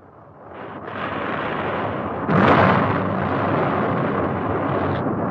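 Rocket roar swelling up from quiet, with a sudden louder blast about two and a half seconds in, then a steady rumbling roar.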